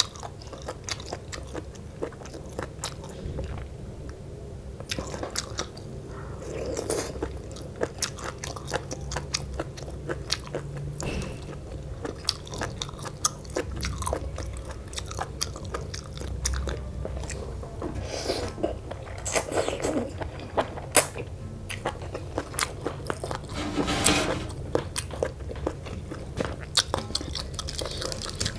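Close-miked chewing and crunching of mouthfuls of spicy Lao rice-noodle salad (tam khao poon) with raw vegetables, many short crisp crunches and mouth clicks in quick succession.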